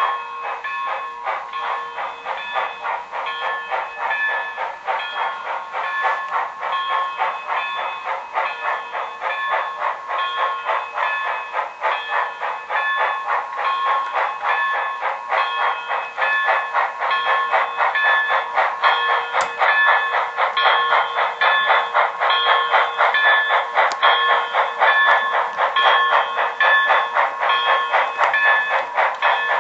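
Steam sound from the sound system of an HO scale Proto 2000 Canadian Pacific 0-8-0 switcher model: fast, steady chuffing, with a bell ringing about once a second. It gets a little louder about halfway through.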